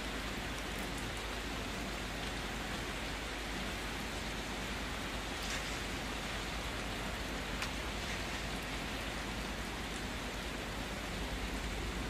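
Steady hissing noise with a few faint crackles scattered through it.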